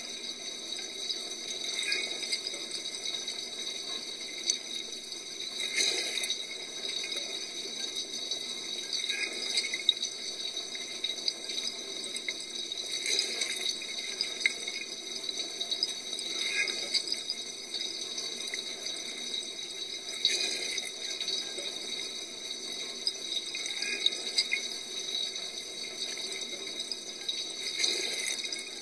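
Dishwasher wash cycle heard from inside the tub: water spraying and splashing steadily, with surges of heavier splashing about every three to four seconds.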